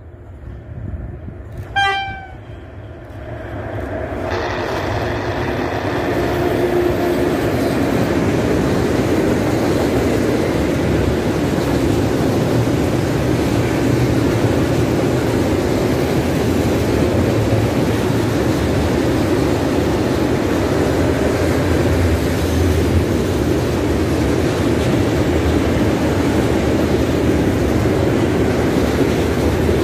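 A freight train's horn gives one short blast about two seconds in. Then the train of tank wagons rolls past with a steady noise of wheels on the rails, which builds over the first few seconds and then holds level.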